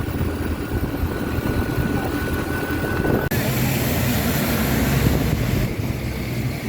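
Heavy rain falling, a steady, loud hiss with a low rumble, cut abruptly about three seconds in and picking up again.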